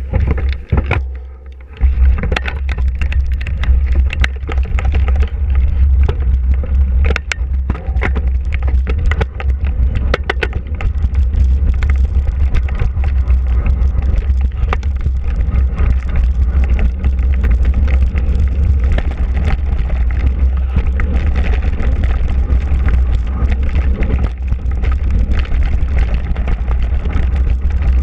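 Wind buffeting a GoPro's microphone over a mountain bike ride on a dirt trail, with tyre noise and frequent rattles and knocks from the bike over bumps. The heavy wind rumble comes in about two seconds in, once the bike gets moving.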